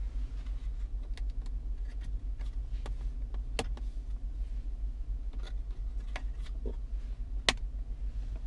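Steady low rumble of a car's interior on the move, with irregular sharp clicks and small rattles scattered through it; the two loudest clicks come about three and a half and seven and a half seconds in.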